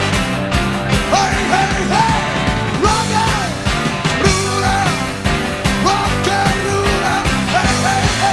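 Live rock music from a rock band with a big band: an instrumental passage of short lead phrases with bending notes over a steady drum beat and bass.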